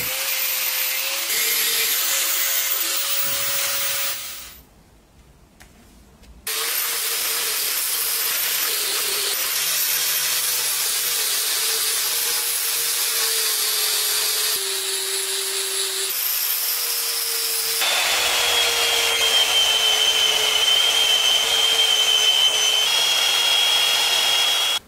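Angle grinder cutting and grinding a steel hammer head in a vise, its motor whining steadily, with a short quieter break about five seconds in. In the last several seconds, a Bosch PBS 75 AE belt sander runs against the steel with a steady high whine.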